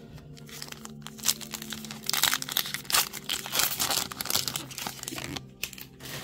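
Foil booster-pack wrapper crinkling and tearing as it is opened, busiest from about two seconds in.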